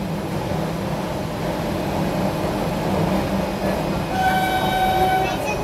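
Batara Kresna railbus running slowly, heard from inside the passenger car as a steady rumble with a low hum. About four seconds in, a horn sounds once, a single steady tone held for about a second.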